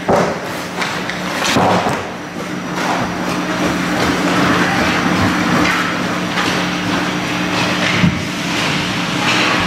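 Ice hockey play in a rink: skate blades scraping the ice and several sharp clacks of sticks and puck, the first right at the start, over a steady low hum.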